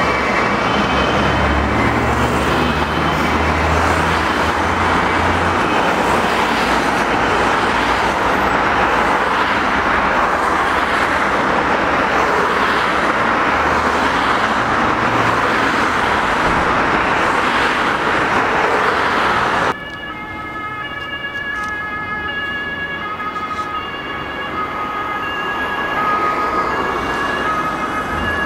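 Two-tone emergency-vehicle sirens (German Martinshorn) of emergency vehicles driving past under blue lights, loud and dense at first with engine and road noise beneath. About two-thirds in the sound cuts off abruptly. The siren's alternating two-tone notes then sound clearer and farther off, growing louder near the end.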